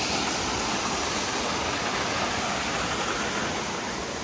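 Waterfall rushing: a steady, even hiss of falling water, easing slightly near the end.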